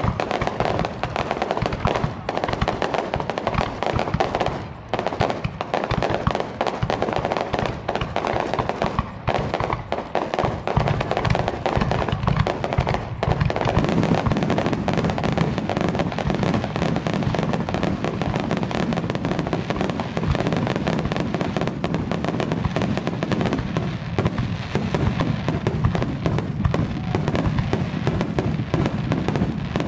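Aerial firework shells bursting in a rapid, overlapping barrage of bangs, growing denser and heavier about halfway in as many shells go up at once. Heard through a camera's built-in microphone.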